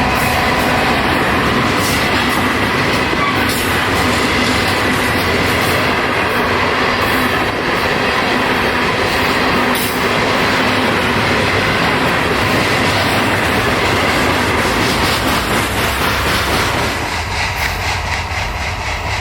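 Diesel-hauled train passing close by, its locomotives notching up the throttle on a grade, with a steady engine drone and wheels clicking over the rail joints. The sound drops off near the end as the train moves away.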